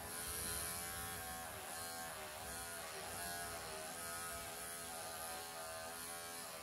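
Electric pet clippers buzzing steadily as they shave through a Persian cat's thick, dry coat, the pitch wavering slightly.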